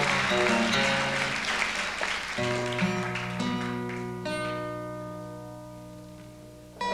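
Live acoustic plucked-string playing closing a song: a run of quick notes, then a final chord struck about two seconds in and left ringing as it slowly fades, with another note added about four seconds in.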